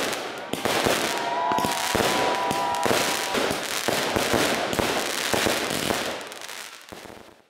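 Fireworks going off: a fast, dense run of bangs and crackles from aerial shells bursting, fading out over the last second or so.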